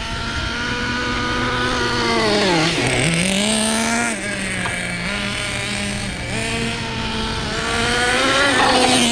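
Traxxas Nitro Stampede's Pro .15 two-stroke nitro engine running through an MIP Stinger exhaust as the RC truck is driven. Its pitch drops sharply about three seconds in, climbs back, and rises highest near the end.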